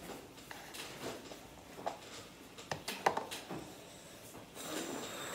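Eating sounds: a metal fork clicking and scraping in a paper cup of instant noodles, a scatter of light, irregular knocks.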